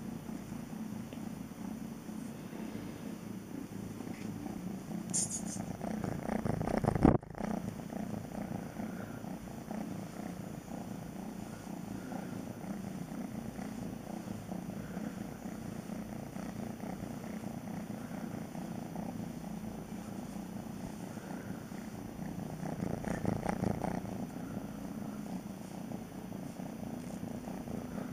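Kitten purring steadily while being rubbed in a towel. A single loud bump about seven seconds in, and a brief rustle of towel handling a little before the end.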